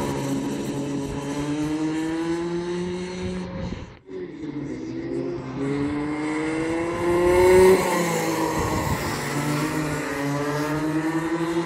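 Rotax 125cc two-stroke kart engine running on track, its pitch climbing steadily as the kart accelerates and dropping each time it lifts off, several times over. There is a brief break about four seconds in, and the engine is loudest just before eight seconds in.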